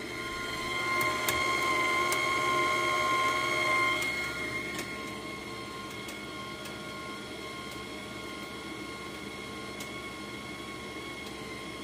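Bestarc MIG145 welder's wire-feed motor running with a steady whine while the feed button is held, pushing welding wire through the gun. The whine is louder for about the first four seconds, then settles lower and steady.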